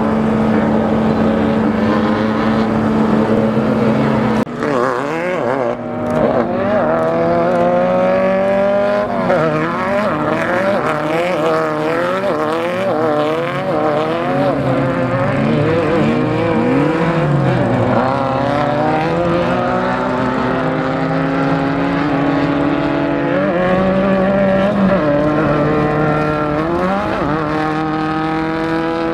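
Off-road race car engine running hard. It holds one pitch for the first four seconds or so, then its revs rise and fall rapidly over and over and climb in long rising sweeps as the car accelerates.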